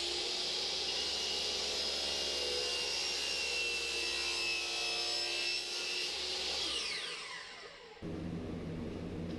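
Table saw running and cutting sanded plywood with a steady whine. About seven seconds in the blade spins down, its pitch falling, and then a different steady noise starts abruptly.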